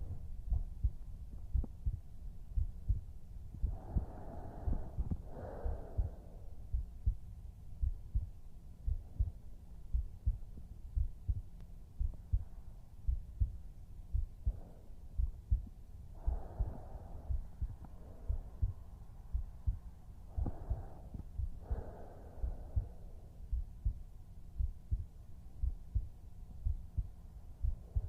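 A man's heartbeat heard close up, as with an ear pressed to his chest: a steady, regular run of low, muffled thumps.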